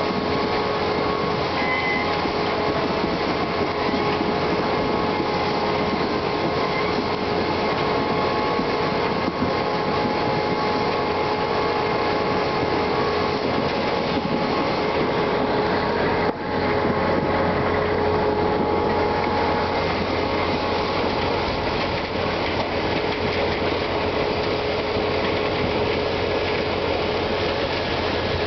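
ROPA Euro-Maus sugar beet cleaner-loader working: its engine and conveyors run steadily, with a continuous rattling rush of sugar beets tumbling over the cleaning rollers. A momentary drop in the sound comes about halfway through.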